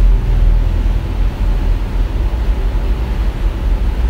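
Steady low rumble with a light hiss over it, unchanging, with no distinct sounds on top.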